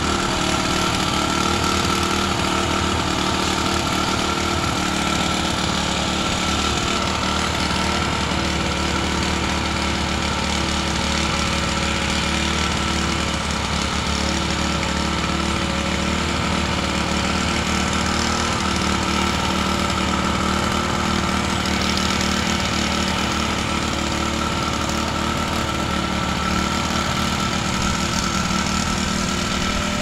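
Small engine-driven walk-behind soil compactor running steadily, its engine droning under a rapid vibrating pound as it packs down loose dirt.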